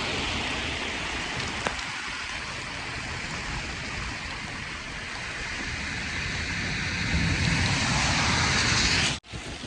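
Rain pouring down, a steady hiss, with a low rumble that grows louder near the end before the sound cuts off abruptly.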